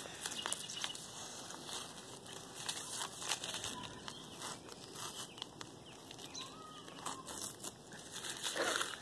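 Green painter's tape being peeled off a painted board and bunched up in the hand: faint, irregular crackling and rustling.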